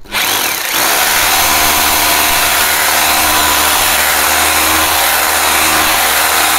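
Corded hammer drill boring a hole through a laminated wooden cabinet panel: the motor spins up within the first second, then runs at a steady pitch.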